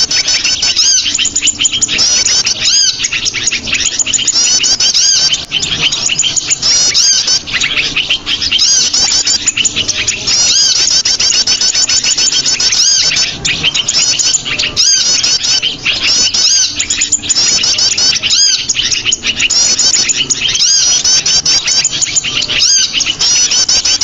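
Bird-lure (pikat) recording of small songbirds: a loud, dense flock of overlapping high chirps and twitters in quick repeated phrases, without a break. It is played to draw small birds in to be caught.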